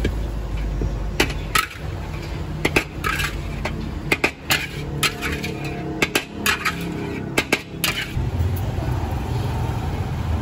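Metal spatula scraping and knocking against a steel wok while fried noodles are scooped out onto a plate: an irregular run of sharp clanks and scrapes that stops about eight seconds in.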